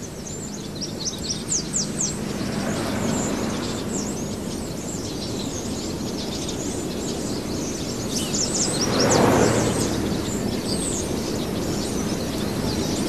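Outdoor ambience of small birds chirping in quick, scattered high calls over a steady background hiss, which swells broadly for a second or two about nine seconds in.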